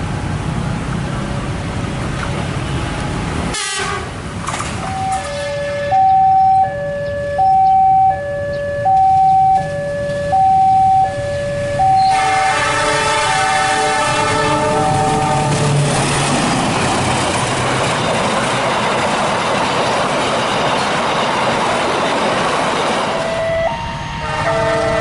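Argo Wilis passenger train sounding its horn and running past. A two-note alternating tone repeats, loudest from about six to twelve seconds in. Then a chord of several horn notes is held, and from about sixteen seconds in comes the steady rumble of the train passing, with horn notes again near the end.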